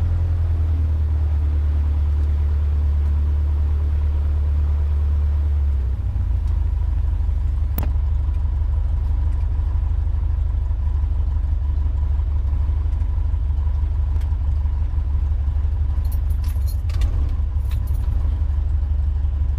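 Cessna 150's four-cylinder Continental O-200 engine idling with a steady low drone that turns rougher and more pulsing about six seconds in. A sharp click about eight seconds in, and a few small clicks and rattles near the end.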